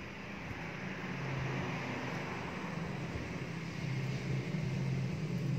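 A steady low hum over an even background hiss, growing slightly louder toward the end; no distinct knife cuts stand out.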